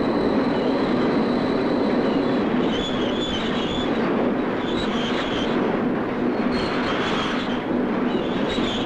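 Belt-driven factory machine tools running: a steady, loud mechanical din with a low hum, and a higher metallic clatter that comes back about every two seconds.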